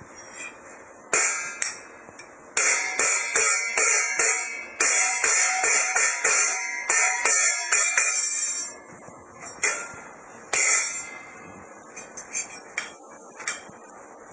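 Ringing, clattering strikes, as of hard objects being banged, in a fast run of about three to four a second that lasts several seconds. A few separate louder hits follow, and then lighter taps.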